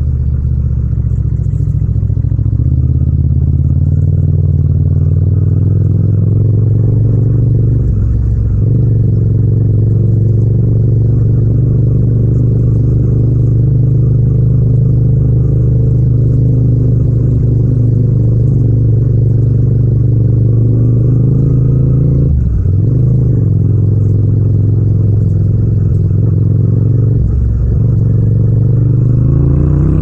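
Yamaha MT-07's 689 cc parallel-twin engine and exhaust running at steady low revs while cruising, heard raw without wind noise. The note dips briefly about two-thirds of the way through, then rises near the end as the bike accelerates.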